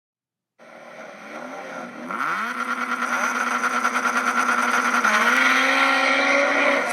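Car engine being revved. Its pitch climbs about two seconds in, then holds and steps up again near the end.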